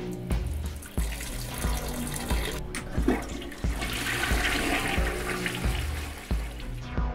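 Urine stream running into a toilet bowl, then a push-button toilet flushed a little before four seconds in, water rushing through the bowl until near the end. Background music with a heavy bass beat about one and a half times a second runs under it.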